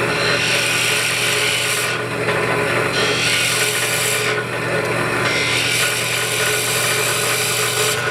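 Horizontal boring machine's electric motor running steadily while the bit bores into the end grain of a wooden workpiece, the rasping cutting noise swelling and easing in about three pushes of a second or two each.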